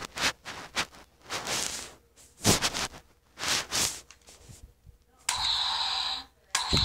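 Mouthed gunshot noises: a few sharp clicks, then several short breathy bursts, then two longer steady hissing blasts near the end.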